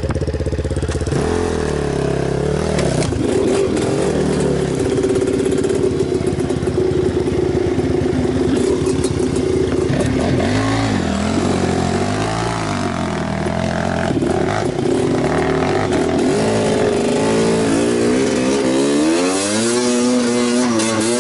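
Enduro motorcycle engine running, the throttle opened and closed again and again so its pitch rises and falls, after about a second of even running at the start; the swings come quicker near the end.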